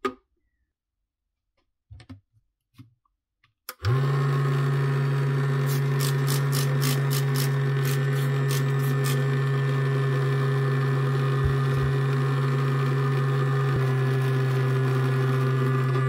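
Vibration-motor glasses cleaner sold as 'ultrasonic', switching on about four seconds in after a few light clicks and knocks, then buzzing with a loud, steady low hum. It has no ultrasonic transducer, just a motor that vibrates the whole case. A quick run of about ten short sharp sounds comes over the hum a couple of seconds after it starts.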